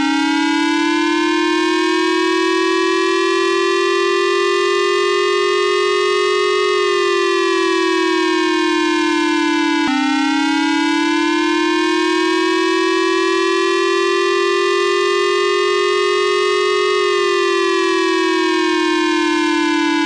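Japanese civil-protection air-raid siren, the warning tone for an armed attack. It wails in two long cycles, each climbing, levelling off and then falling over about ten seconds, with the second cycle starting abruptly about halfway through.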